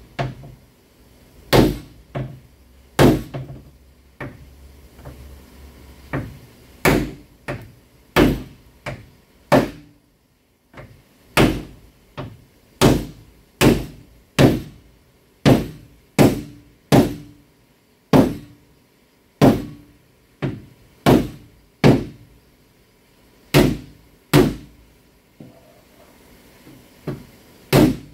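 Hammer blows on a Ford Edge's steel hood, banging out a dent: about twenty strikes, roughly one a second, each with a short ring, with a brief pause about ten seconds in.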